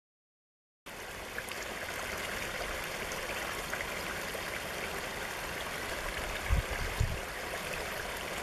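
Small woodland stream running over rocks in a low cascade, a steady rush of water that starts about a second in. Two brief low thumps come a little past the middle.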